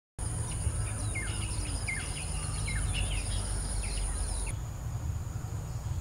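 Natural ambience of birds calling in short, repeated falling chirps over a steady high-pitched insect drone, with a low rumble underneath. The drone and the birdsong stop about four and a half seconds in, leaving the rumble.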